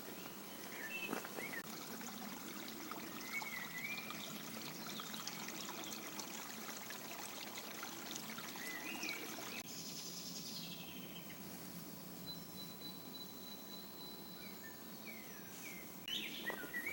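A small stream trickling, with a few short bird chirps over it. About ten seconds in the water sound drops abruptly to a quieter hiss, and a thin steady high tone is heard for a few seconds.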